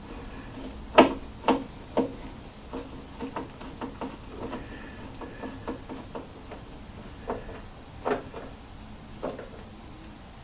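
Irregular clicks and knocks of screws and a screwdriver as a woofer is screwed into a speaker cabinet, with three sharp knocks close together about a second in and a few more later.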